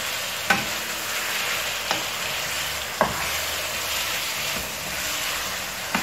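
Fish pieces in a pepper sauce sizzling in a frying pan while a wooden spatula stirs them. The spatula knocks sharply against the pan four times.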